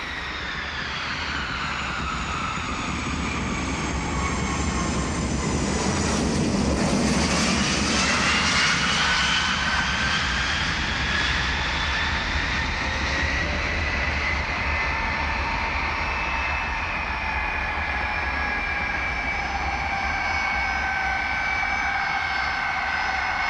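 Jet aircraft engines whining over a low rumble. Several whining tones fall in pitch over the first few seconds, rise again about eight seconds in, and then hold steady.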